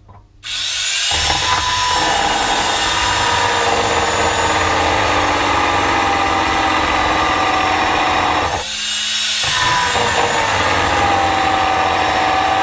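Belt power file grinding through a rusted steel fuel-tank strap bolt to cut it out. It starts about half a second in, its whine sagging under load, stops briefly near nine seconds, then bites in again.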